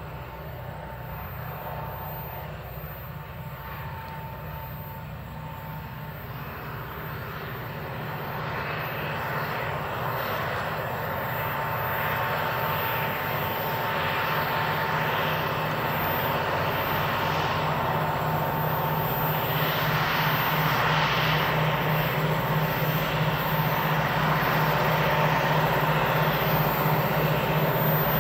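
Diesel-electric locomotives hauling a steel freight train, their engines droning steadily with a low pulsing beat and growing louder as the train approaches.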